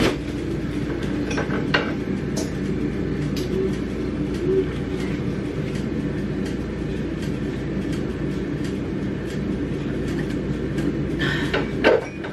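Steady low mechanical hum from a kitchen appliance, with a sharp click as a refrigerator's top freezer door is pulled open and a few lighter clicks and knocks after.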